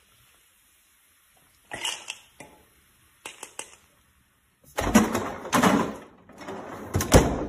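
Kitchen handling noises: a few scattered clicks and clatters, then louder scraping and knocking from about halfway through as a refrigerator drawer is pulled open and rummaged in.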